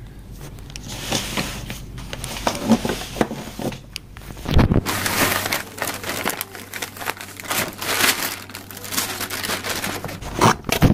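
Plastic bag crinkling and rustling as it is handled, with a thump about four and a half seconds in.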